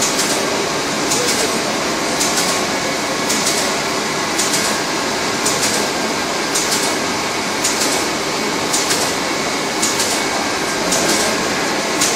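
Rebuilt Turing Bombe codebreaking machine running: a steady mechanical whirr and clatter from its banks of rotating drums, with a sharper rattle about once a second.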